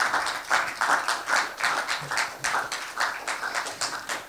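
Audience applauding, many hands clapping at once, easing off a little toward the end.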